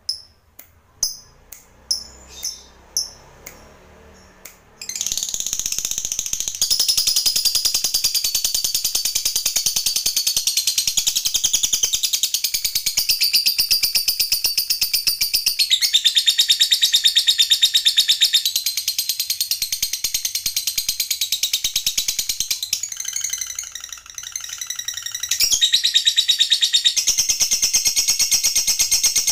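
A lovebird gives about eight separate sharp chirps, then about five seconds in breaks into a long, unbroken, very fast high-pitched chattering trill, the 'ngekek panjang' long chatter. The trill falters briefly near the three-quarter mark, then picks up again.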